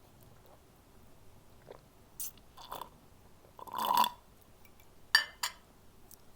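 Close-miked crunching bites and chewing of a crisp apple, in a handful of short bursts, the loudest about four seconds in, followed by two sharp crunches.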